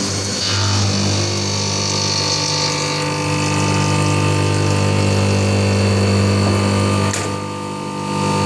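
Haas CNC mill running while milling aluminum: a steady hum with a high whine. A sharp click comes about seven seconds in, and the sound briefly drops in level before picking up again.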